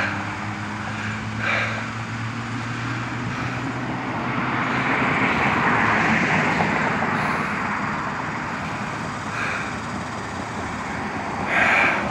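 Road traffic noise: tyre noise from a passing vehicle swells through the middle and fades, over a low engine hum that dies away in the first few seconds.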